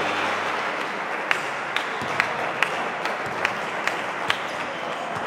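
Spectators applauding. In the middle a few loud single hand claps stand out, about two a second.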